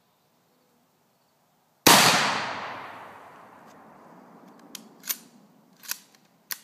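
A single shot from a Mosin-Nagant M44 carbine (7.62×54R) about two seconds in, its report echoing and fading over about two seconds. Then four sharp metallic clacks as the bolt is worked to eject the spent case and chamber the next round.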